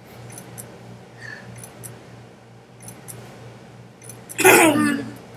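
Photo Booth's camera-shutter sound effect as it takes a four-picture set: four faint double clicks about a second apart. Near the end comes a short, loud burst of a person's voice.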